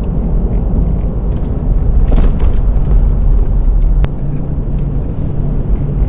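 Inside a moving car: steady low rumble of engine and road noise while driving, with a single sharp click about four seconds in.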